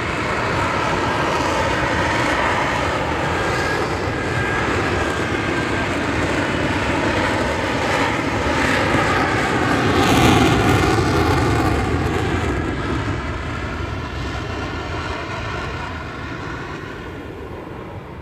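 F-35B's F135 jet engine running in vertical-lift mode with the lift fan engaged: a loud, steady jet roar. It peaks about ten seconds in, then fades steadily as the jet moves away.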